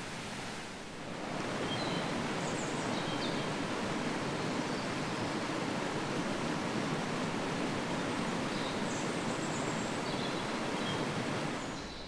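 Rushing water from a mountain waterfall or cascading stream, a steady even rush. It swells about a second in and eases off again near the end.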